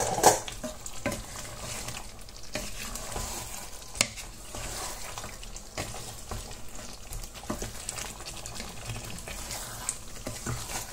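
Chunks of browned pork being stirred with a wooden spatula into a pot of hot, sizzling tomato-onion sauce. A few sharp knocks of the spatula and meat against the pot, the loudest just after the start and another about four seconds in.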